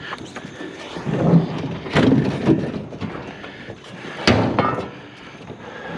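Scrap items being shifted and set down on the trailer: a run of bumps and knocks, with a sharp bang about four seconds in.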